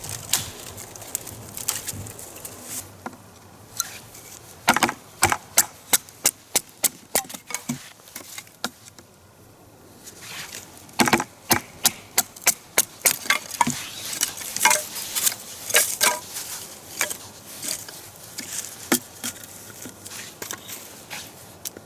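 Firewood being chopped and broken up by hand: a series of sharp, irregular knocks and cracks of wood in runs, with a short lull about eight seconds in.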